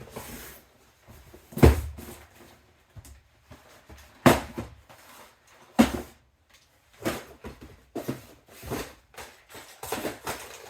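Cardboard LEGO set boxes being handled and set down: a series of knocks and thuds, the loudest about two, four and six seconds in.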